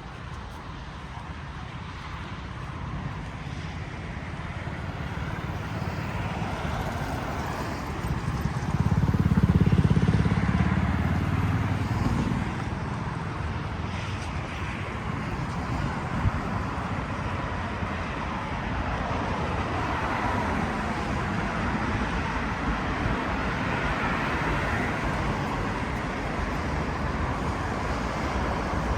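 Road traffic noise, with one vehicle passing close by about nine to eleven seconds in, louder and deeper than the rest.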